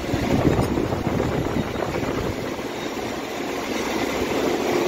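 Continuous steady mechanical rumble with hiss, with a faint steady hum coming in near the end.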